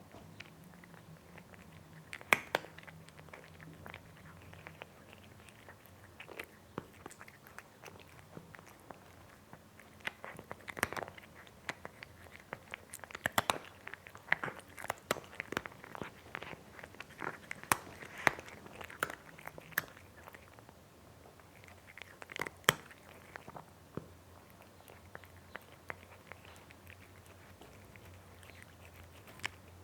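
Cat eating: irregular sharp bites and chewing clicks, busiest in the middle stretch, with a couple of louder bites near the start and about two-thirds of the way through.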